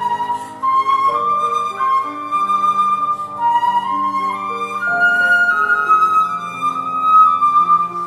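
Concert flute playing a flowing melody over grand piano accompaniment.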